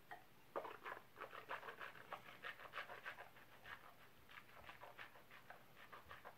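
A rapid series of short, quick breaths, about four to five a second, strongest in the first few seconds and fading toward the end.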